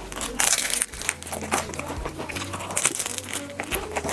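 Close-up eating sounds: a loud crinkling rustle about half a second in, then scattered short crisp clicks and bites.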